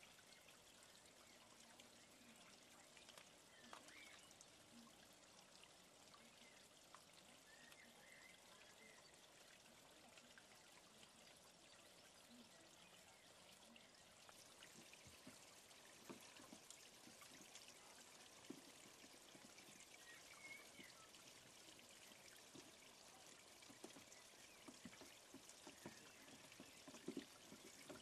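Faint, steady trickle of water from a garden pond, with soft clicks and small splashes becoming more frequent in the second half.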